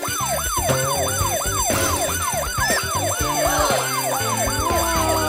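Siren sounding in a fast yelp: quick falling sweeps, about three a second, the wee-woo of a fire engine or emergency vehicle siren.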